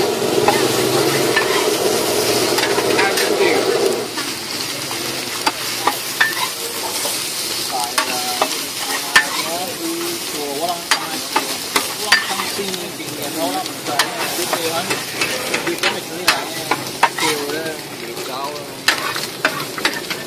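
Food sizzling on a large flat griddle as it is stir-fried, with a metal spatula clicking and scraping against the iron. The sizzle is louder for the first few seconds, then drops, with frequent sharp spatula strikes after that.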